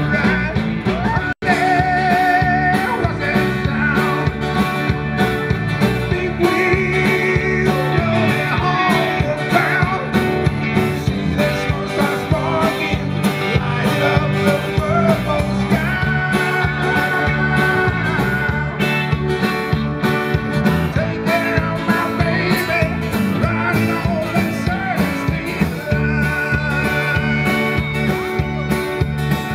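Live country-rock band playing: fiddles and electric guitars over drums with a steady beat. The sound drops out for an instant about a second and a half in.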